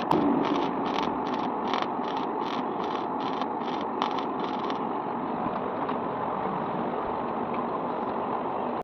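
Steady mechanical noise, with a rhythmic clatter about three times a second that stops a little under five seconds in, leaving a steady hiss.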